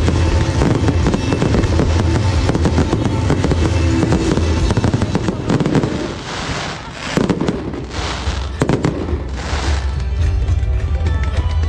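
Fireworks display: rapid crackling and popping of many shells at once, with several hissing, rushing bursts in the second half, over loud music with a steady bass.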